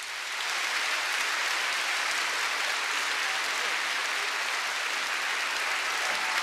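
Concert audience applauding, the clapping swelling in over the first second and then holding steady.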